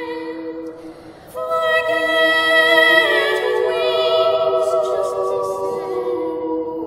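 Layered a cappella vocals singing long held notes with vibrato. One phrase fades out, then a fuller, louder phrase comes in about a second and a half in.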